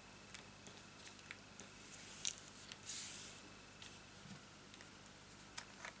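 Quiet handling of a silicone craft mat and small cardstock pieces on a tabletop: a few light clicks and taps, with a brief rustle about three seconds in.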